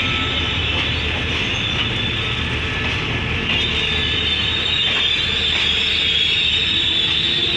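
Passenger coaches of an express train rolling past on the rails, a steady rumble of wheels and running gear with a continuous high squeal from the wheels, which grows louder about three and a half seconds in.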